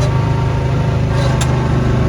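Snowblower engine running steadily, with a short sharp click about one and a half seconds in.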